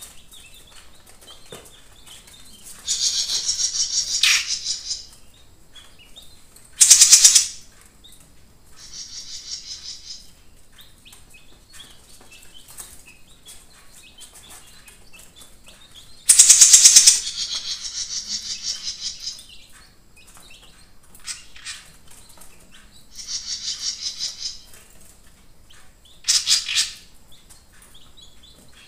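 Caged jenggot mini songbird singing in short bursts of fast, high-pitched trilled notes, about seven phrases with pauses between, the loudest about a third and halfway through.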